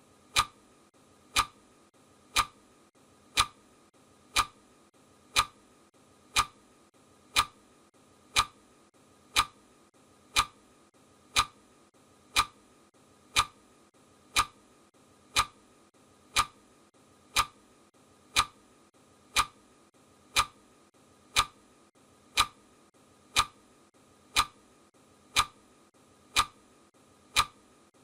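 Clock ticking at a steady one tick per second, each tick short and sharp: the ticking of a countdown timer.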